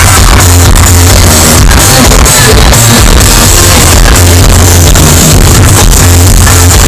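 Live pop concert music over an arena sound system: an electronic dance track with heavy bass and a steady beat, very loud, recorded from the audience.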